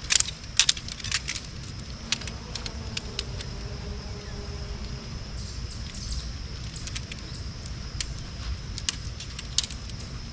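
Shock-corded tent pole sections clicking and clacking against each other as a one-piece hub pole frame is unfolded and its sections snapped together. Several loud sharp clicks in the first second or so, then scattered lighter clicks.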